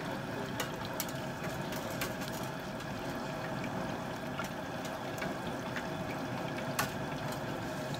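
Propane turkey fryer: hot peanut oil bubbling with a steady hiss and scattered sharp pops.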